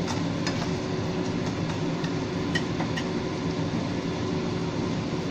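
A steady, fan-like kitchen hum and rumble, with a few light clicks of a spatula against the wok in the first three seconds while the chicken in coconut milk is stirred.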